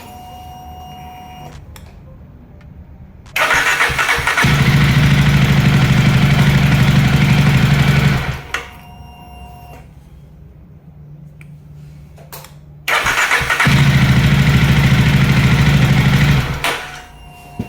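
Jawa motorcycle engine being started on its electric starter, twice: each time a brief whir of cranking, then the engine running for a few seconds before it is cut off. The starter now turns the engine through a newly fitted counter pinion (starter idler gear).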